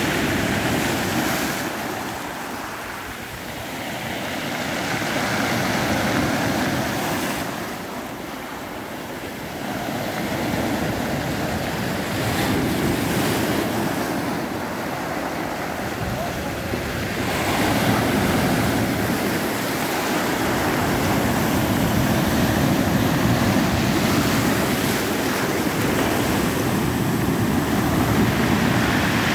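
Sea surf breaking on rocks and a pebble beach, the wash swelling and easing as waves come in and foam over the stones.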